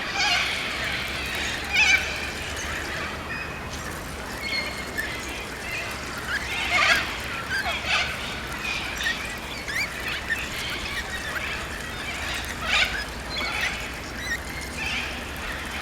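Birds calling: many short high calls, some rising or falling in pitch, scattered irregularly over a low steady hum.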